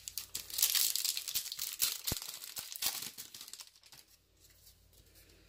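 A football trading-card pack's wrapper being torn open and crinkled for about three seconds, then quieter rustling as the stack of cards is pulled out and handled.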